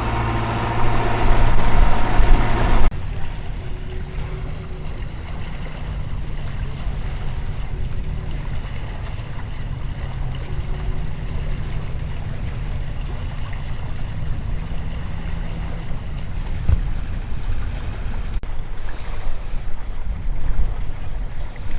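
Helia 44 catamaran under engine power on a calm sea: a steady low engine drone with wind and water noise. For the first three seconds it is louder, with a steady hum; it then cuts to a quieter low rumble.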